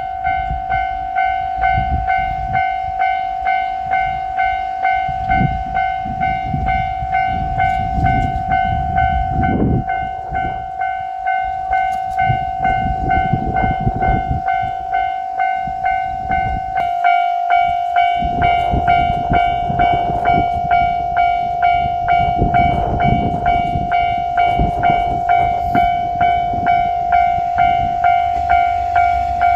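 Japanese railroad crossing warning bell ringing its evenly repeating electronic 'kan-kan' ding. Underneath it is a low rumbling that grows stronger in the second half, as the train draws near.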